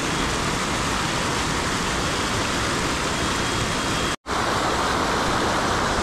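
Hot river's water rushing steadily, an even, unbroken rush. It cuts out for a split second a little after four seconds.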